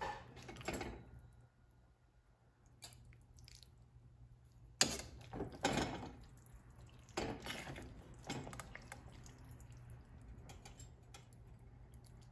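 Metal serving utensil clinking and scraping against a stainless steel skillet and a ceramic plate as saucy spaghetti is dished out, with soft wet sounds from the pasta. The knocks come irregularly, the loudest about five seconds in, growing sparser and fainter in the second half over a faint steady low hum.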